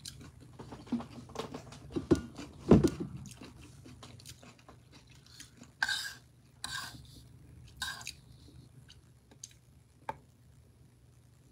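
Close-up mouth sounds of chewing scrambled eggs with vegetables. Around the middle come three short scrapes and clinks of a metal fork in the bowl, and near the end a single click.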